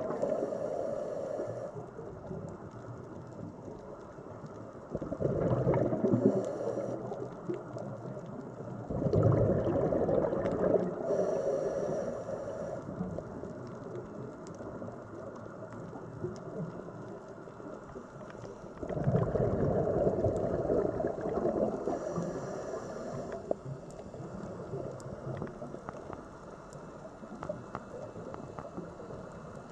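Scuba diver's breathing heard underwater: a few loud, gurgling rushes of exhaled bubbles several seconds apart, with a steady low wash of water noise between them.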